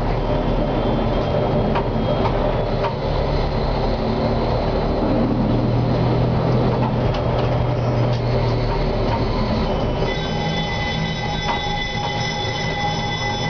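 Konstal 105Na tram running along street track, heard from the driver's cab: a steady hum from the motors and running gear, with occasional clicks and knocks. About ten seconds in, a steady high whine joins.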